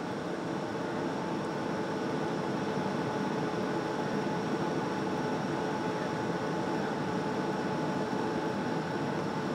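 Boeing 757 jet engines and airflow heard inside the cabin during descent: a steady roar with a few faint constant tones running through it.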